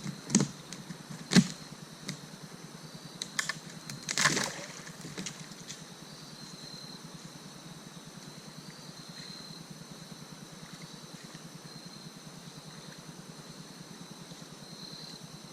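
A handful of sharp clicks and knocks in the first few seconds, the loudest about a second and a half in and a quick cluster near four seconds. After that a faint, steady chirring of crickets or other insects carries on.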